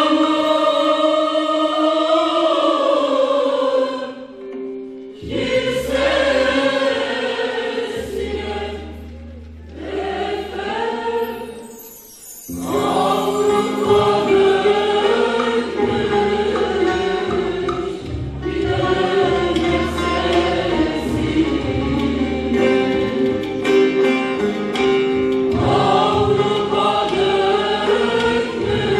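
Mixed choir of men and women singing a Turkish folk song from Denizli, with low instrumental notes beneath. The singing breaks off briefly about four seconds in and again around twelve seconds, then carries on.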